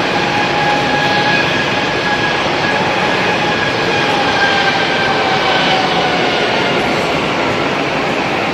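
Jet airliner engines running, a steady loud rush with a high whine on top that slowly drops a little in pitch.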